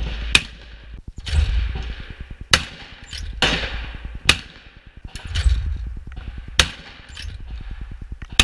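Shotgun fired at clay targets, about five shots roughly two seconds apart, each a sharp crack. Wind buffets the microphone in bursts between the shots.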